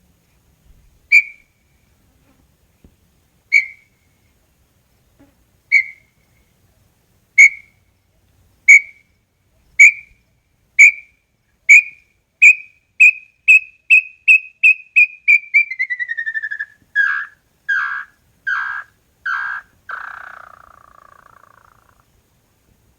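Small-billed tinamou (inhambu-chororó) singing: a series of clear whistled notes that start about two seconds apart, then speed up into a rapid run while sliding down in pitch, and end in five lower, longer notes.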